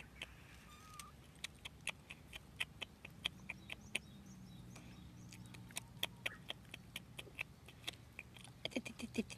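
Stray kittens chewing: a run of irregular sharp crunching clicks, a few per second. A bird chirps briefly about a second in.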